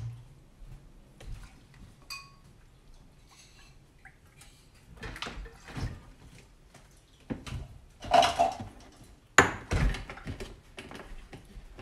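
Almond milk poured from a carton into a measuring cup and onto oatmeal in a bowl, amid light clinks of kitchenware. A sharp knock near the end, the loudest sound, as the carton and cup are set down on the counter.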